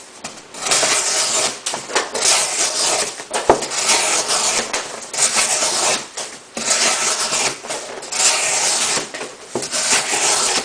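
Leatherman Charge TTi's S30V blade slicing through cardboard in repeated scratchy strokes, about one a second with short pauses between them.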